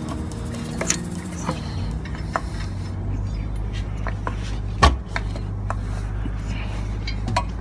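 Scattered metallic clinks and knocks of car parts and tools being handled while a part is pushed into place during a water pump installation, the loudest knock about five seconds in. A steady low hum runs underneath.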